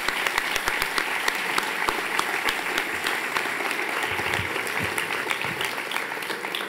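Audience applauding, the clapping easing off a little near the end.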